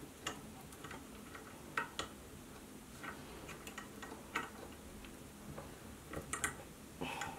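Faint, irregular small clicks and ticks as a metal paracord needle and paracord are worked through tight cow's hitch knots on a stainless steel shackle, with a short scrape near the end.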